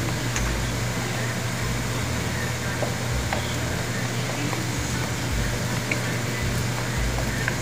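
Steady hiss of sardines in sauce cooking in a wok, over a constant low hum, with a few faint ticks as a wooden spatula stirs against the pan.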